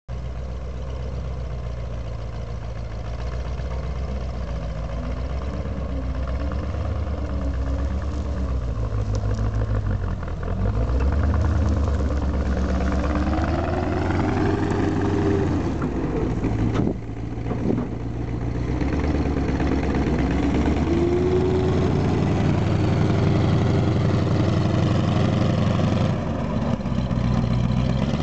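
Cadillac Gage V-100 Commando armoured car's engine running as the vehicle drives through grass and climbs out of a ditch, revving up and easing off twice, about halfway through and again a few seconds later, with a brief dip just after the first.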